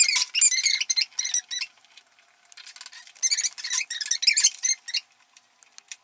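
Rapid high-pitched squeaking in two runs, the second starting about two and a half seconds in, as the steel bolts holding the body on under a Losi 5ive-T chassis are unscrewed by hand.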